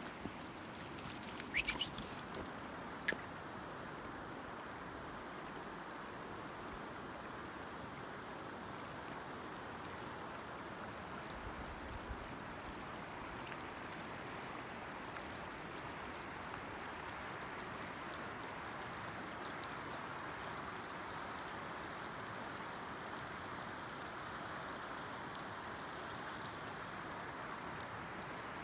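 A river running shallow and fast over a cobble bed: a steady rush of water. A few sharp clicks sound about two to three seconds in.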